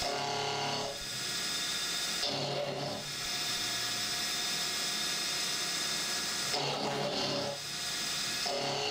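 CNC milling machine cutting steel with a dull end mill: a loud, steady whine of many tones over the hiss of flood coolant. The tone shifts every few seconds as the cut changes. The noise comes from the worn cutter being forced through the material.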